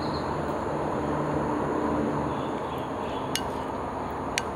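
Wooden spoon knocking against a glass bowl of blueberry milk pudding while scooping: two sharp clinks about a second apart near the end, over steady background noise.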